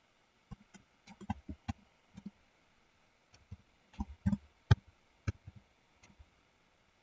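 Computer keyboard being typed on: sharp, separate key clicks in two uneven runs, the loudest a little under five seconds in.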